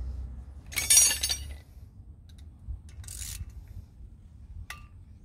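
A sharp metallic clink with brief high ringing about a second in, as steel hand tools knock together. Then faint scraping and a small click as a screwdriver works the small retaining screw of a new front brake disc.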